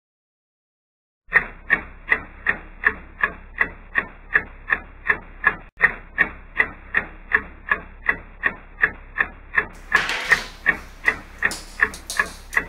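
A clock ticking steadily, nearly three ticks a second, starting about a second in. A hiss of room noise joins under the ticking about ten seconds in.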